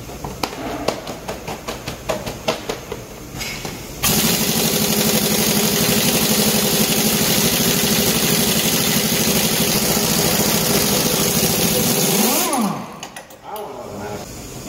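Pneumatic impact wrench on a semi-trailer wheel's lug nuts, running in one long steady hammering burst to loosen them. It starts about four seconds in after a few light clicks and knocks, and winds down with a falling whine about twelve seconds in.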